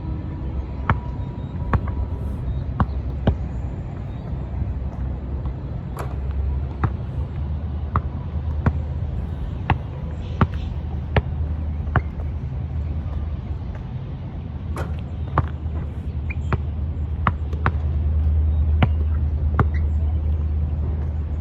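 Wind buffeting the microphone in a steady low rumble, with sharp knocks or taps roughly once a second on top of it.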